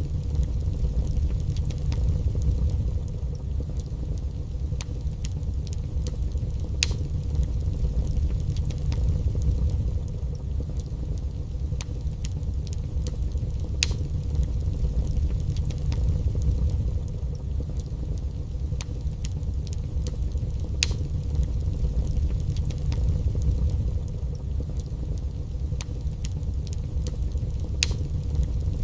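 Wood fire burning in a fireplace: a steady low roar with sharp crackles and pops every second or two.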